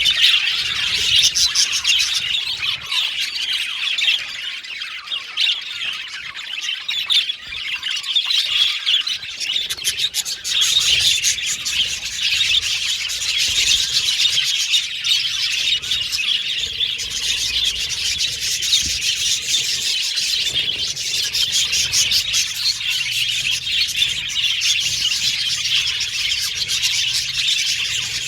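A group of budgerigars chattering, chirping and warbling continuously, many calls overlapping.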